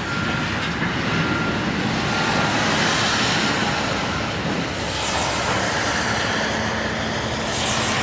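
Heavy demolition machinery running: a steady engine rumble with a wash of noise, and a faint high tone that comes and goes in the first two seconds or so.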